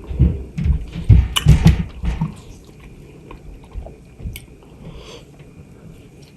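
Close-miked chewing and biting of fresh, juicy mango, with wet mouth sounds. A quick run of strong chews in the first two seconds, then quieter, sparser chewing.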